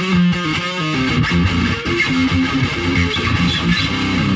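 Electric guitar playing a meandering riff: a quick run of picked notes shifting in pitch several times a second.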